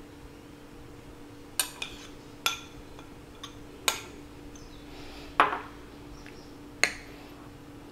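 A metal spoon clinking and scraping against a mixing bowl and a small metal baking pan: about half a dozen sharp clinks, the loudest about five and a half seconds in.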